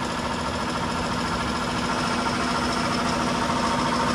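Portable air compressor running with a steady, unbroken hum.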